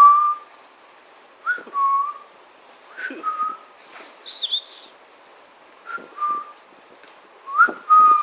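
Whistling to a baby: a short call, a quick upward flick into a held steady note, repeated about every one and a half seconds, with one higher warbling chirp about four seconds in.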